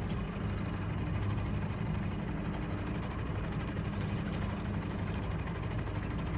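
Small boat's motor running steadily at low speed, with an even low hum.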